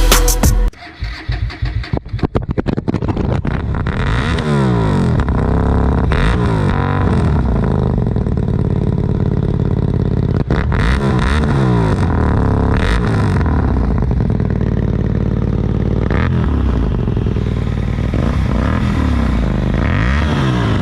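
Hyosung GT250R 250 cc V-twin with a modified aftermarket exhaust, loud. It sounds uneven and choppy for the first few seconds, then runs with its pitch repeatedly rising and falling as the bike is ridden, revving up and easing off through the gears.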